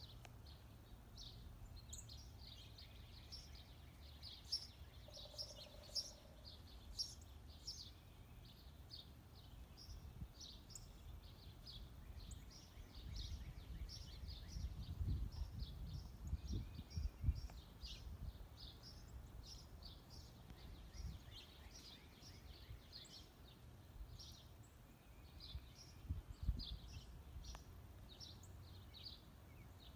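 Small songbirds chirping again and again, faintly, with low rumbling in the middle and again briefly near the end.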